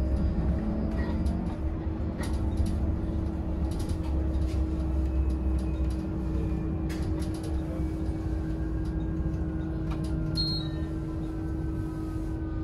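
Heuliez GX 337 Linium electric bus heard from inside while under way: a steady low road rumble with a constant hum, faint whines that slowly slide in pitch, and scattered sharp clicks and rattles.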